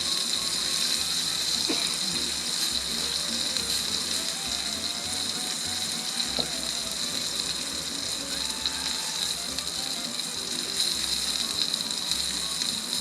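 Wagyu New York strip steak sizzling on a Blackstone flat-top griddle, a steady hiss with faint music behind it.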